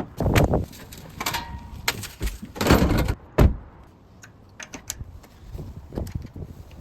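A series of heavy clunks and knocks, the loudest about three seconds in, then lighter clicks: a door and equipment being handled.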